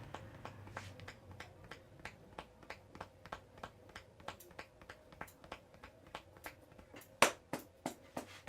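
A string of small, quiet clicks, then one loud, sharp crack about seven seconds in, with a few lighter clicks after it: joints being cracked, the loud one a neck crack.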